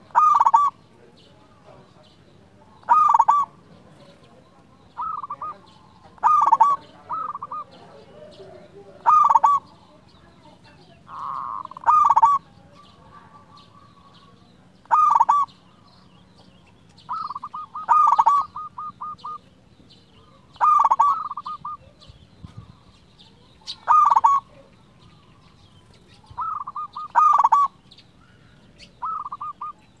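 Zebra dove (perkutut) cooing: short phrases of quick, stuttering coos repeated about every two to three seconds, some phrases softer than others.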